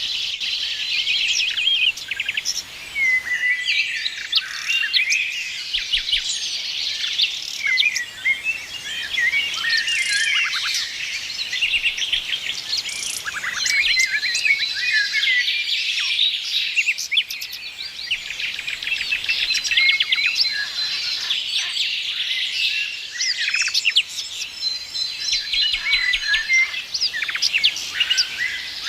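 A dense chorus of many songbirds chirping, trilling and whistling at once, with overlapping high calls and no pause.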